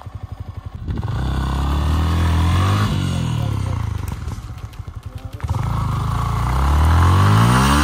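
A single motorcycle engine revved hard twice, the pitch climbing each time, with a choppy low-rev stretch between. The bike is being ridden under load to get it out of a rough off-road spot.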